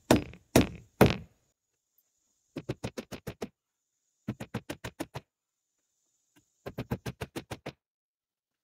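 Hammer driving nails into the wooden framing of a roof truss. Three heavy blows land about half a second apart in the first second, then come three short runs of quick, lighter taps, each about eight strikes in under a second.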